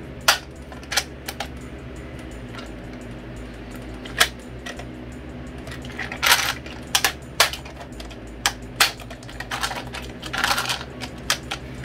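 Caldwell rotary mag charger being cranked to push .22 LR rounds into a Ruger BX-25 magazine: irregular plastic clicks with brass cartridges rattling in the loader, with longer rattles about six and ten and a half seconds in, over a steady low hum.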